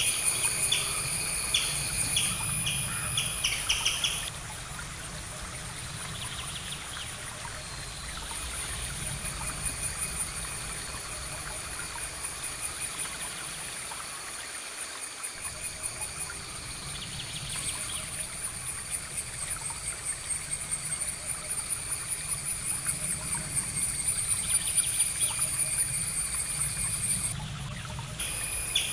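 Outdoor nature ambience of insects trilling steadily at a high pitch, with repeated bird-like chirps and a low rumble underneath. The chirping stops abruptly about four seconds in and returns near the end.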